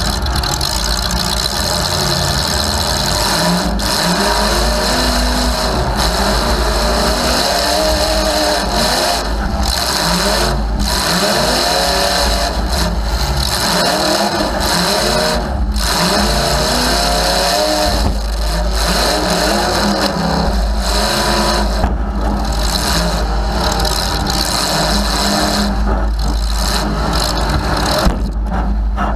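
Demolition derby car's engine running loud through short open exhaust pipes that stick up through the hood, revved up and down over and over.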